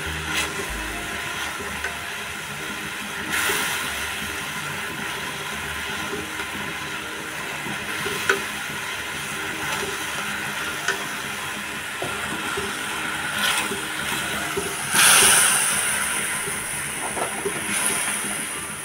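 Tamarind chutney thickened with cornflour bubbling with a steady sizzle in a kadhai on a gas flame, as it starts to thicken. A silicone spatula stirs it, giving short scrapes now and then, with a louder burst about fifteen seconds in.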